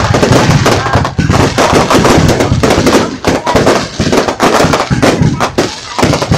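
Fireworks display: a rapid barrage of aerial shells bursting, many sharp bangs a second running into one another with crackling, loud throughout.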